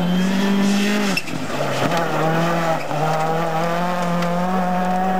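Rally car engines held at high revs under load on a gravel stage. One engine note runs for about a second, breaks off at a cut, then a second one holds steady with a slight rise in pitch.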